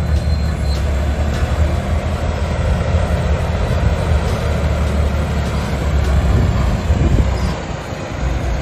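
Bulldozer's diesel engine running steadily under load, dropping a little in level near the end.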